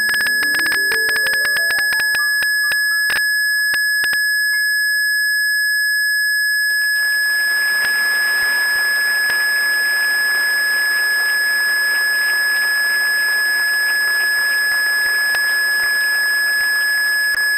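Blüthner grand piano played by several hands in quick runs, ending on a final chord about three seconds in that rings away. About seven seconds in, an audience breaks into applause that carries on to the end. A steady high-pitched whine lies under it all.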